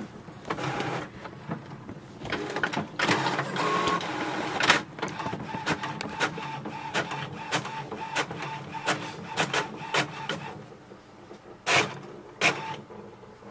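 HP OfficeJet Pro 8035 all-in-one inkjet printer making a copy: its mechanism whirs with a rapid series of clicks while the page is scanned and printed. A steady whine runs through the middle, and a few louder clacks come near the end as the printed page feeds out.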